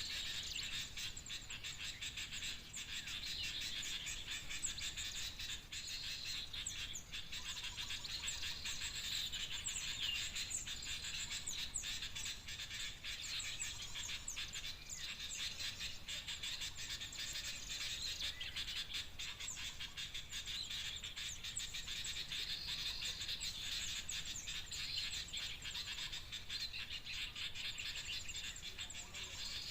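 Bird-lure call of noisy small birds: a continuous, busy chatter of many high chirps and twitters, used to draw small birds such as common ioras to lime sticks.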